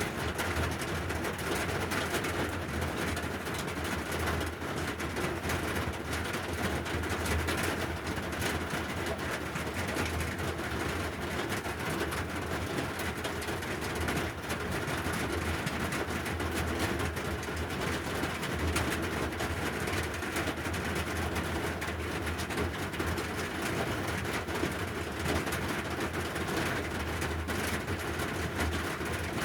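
Steady rain falling, an even hiss with a low steady hum underneath.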